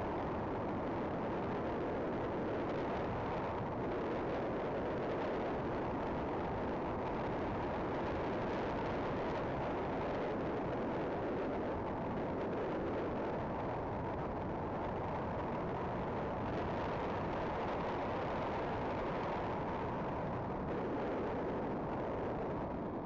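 Steady rush of wind and road noise on a camera riding on a moving motorcycle, an even, unbroken sound with no distinct engine note.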